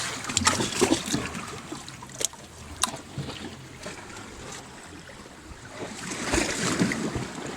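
Small sea waves washing and splashing against shoreline rocks, with a few sharp clicks in the first three seconds and a louder wash about six seconds in.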